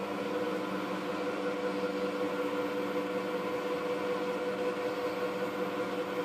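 Schaublin 125 CNC lathe running under its new LinuxCNC control, a steady mechanical hum with a whine, as the servo-driven axes move the tool in toward the steel bar, not yet cutting.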